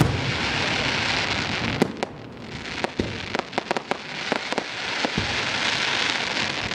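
Fireworks going off: many sharp pops, with two long stretches of dense crackling, one in the first two seconds and another from about halfway through.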